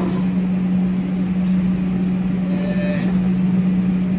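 Steady low machine drone of kitchen equipment: an unbroken hum over a rumble, with a faint brief higher tone near the middle.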